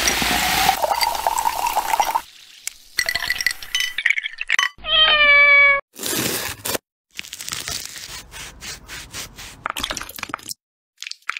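Soda poured from a bottle into a glass of ice, the pitch of the pour rising as the glass fills. About five seconds in a cat meows once, about a second long and slightly falling, followed by a run of light clicks and taps.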